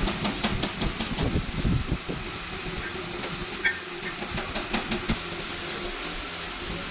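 Plastic bag rustling and small plastic tap parts clicking and knocking as they are handled, over a steady mechanical hum. The handling noises are busiest in the first two seconds, then come only now and then.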